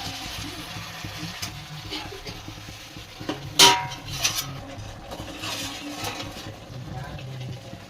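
A metal spoon stirring and scraping in a pan of sizzling, frying food, with a few light knocks and one loud ringing clank of metal on the pan about halfway through.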